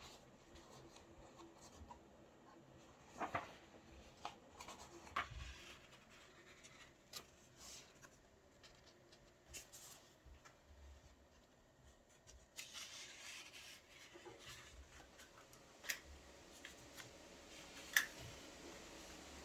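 Quiet handling sounds: scattered light taps, clicks and rubbing of small objects, the sharpest click near the end, with a soft hiss coming in about two-thirds of the way through.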